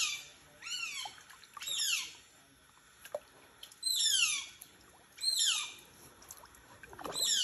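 Asian small-clawed otter chirping: about six high, squeaky calls, each falling quickly in pitch, coming roughly one a second with a short pause midway.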